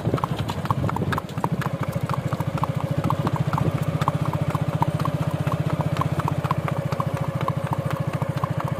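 Horse's shod hooves clip-clopping on an asphalt road at a fast, even gait, about four hoofbeats a second. A motorcycle engine runs steadily underneath, settling into an even throb about a second in.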